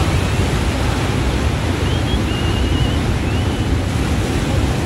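Surf breaking and washing on a rocky shore, with wind buffeting the microphone: a steady low rumble under an even hiss. A few faint, high wavering whistles come and go.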